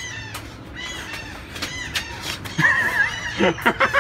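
Birds chirping and calling over and over, with a warbling call partway through and a quick run of loud, short, harsh calls near the end.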